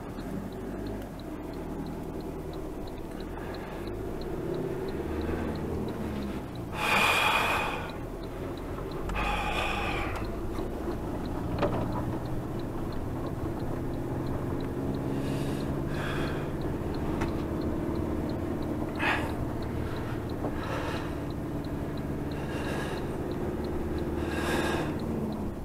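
A road vehicle's engine running as it drives, heard from inside the cab, its note shifting a few times. Several short breathy hisses sound over it, the two loudest about 7 and 9 seconds in.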